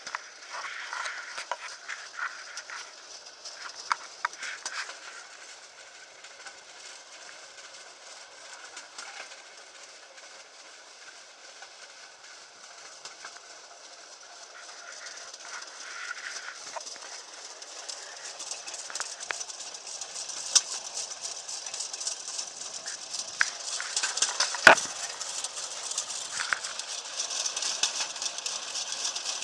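Pedal rail bike (draisine) rolling along old railway track: a steady rattling clatter of its flanged wheels on the rails and its frame, with many sharp clicks scattered through. It grows louder over the second half.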